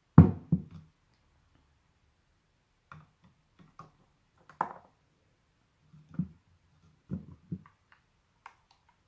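A clear plastic jug of water set down on a table with one sharp knock, followed by a scatter of faint clicks and small knocks as a Xiaomi Mi Band 5 fitness band is lowered into the water and handled against the plastic.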